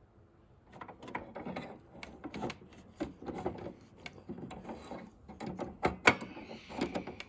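Irregular plastic clicks and scraping as a colour ink cartridge is pushed and worked into the print-head holder of a Canon PIXMA TS3160 inkjet printer, with one sharper click about six seconds in.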